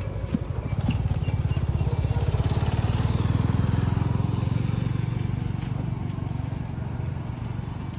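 A motor vehicle's engine passing by: a low, fast-pulsing hum that grows louder to a peak about halfway through and then slowly fades.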